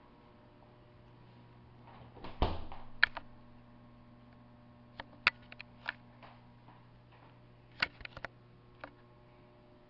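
A refrigerator door shut with a thump about two and a half seconds in. A low steady hum follows, with a scattering of light clicks and taps.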